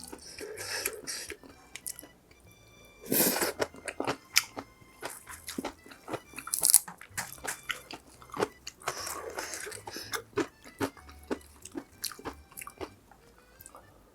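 Close-miked chewing and biting of food, with many wet mouth clicks and a few longer crunching bursts.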